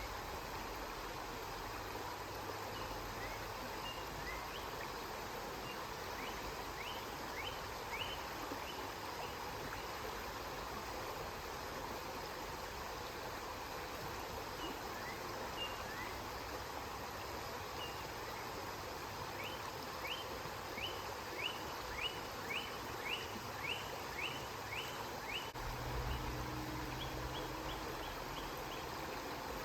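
River water flowing steadily. Over it, a bird repeats runs of quick, rising chirps several times. A brief low hum comes in near the end.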